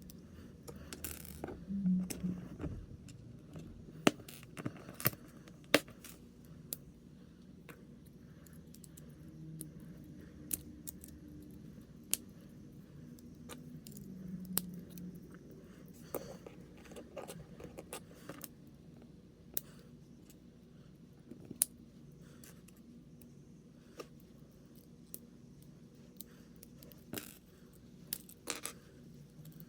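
Small plastic parts of a Blokees snap-together figure kit clicking and rattling as they are handled and pressed together, in scattered sharp clicks at irregular intervals.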